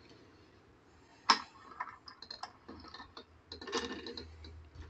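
Light clicks and knocks of knives and a small bench vise being handled while one knife is swapped for the next: one sharp click about a second in, scattered small ticks, then a cluster of clicks near the end.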